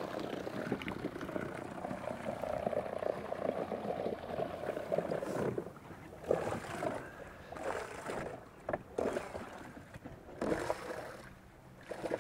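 Water lapping and slapping against the hull of a drifting fibreglass bass boat, with irregular splashes in the second half.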